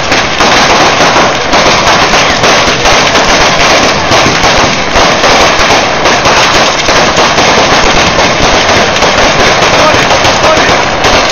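Dense, unbroken barrage of firecrackers exploding in rapid succession, very loud, from a ground-level firework display throwing up flashes and smoke.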